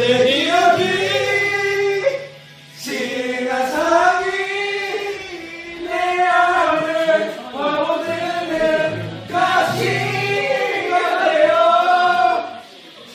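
A group of people singing together, several sung phrases with short breaks between them.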